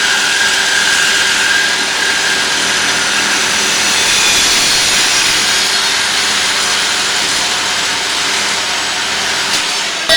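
Electric reciprocating saw (Sawzall) running steadily as it cuts through the bicycle's metal frame, stopping suddenly at the end.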